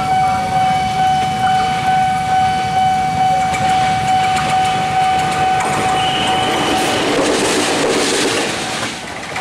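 A CC 206 diesel-electric locomotive approaching and passing over a level crossing, its engine and wheel noise building to a peak about seven to eight seconds in. Under it, a steady ringing level-crossing warning signal is heard until the locomotive drowns it out.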